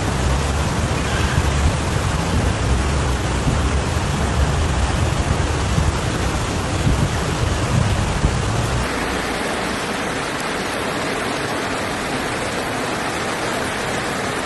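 Steady rushing noise of torrential rain and floodwater. About nine seconds in, the deep rumble drops away and a brighter hiss carries on.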